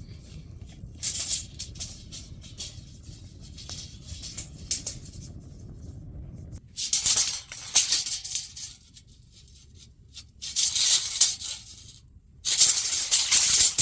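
Rattling, shaking noise in four bursts of a second or two each, over a low rumble that stops about halfway through.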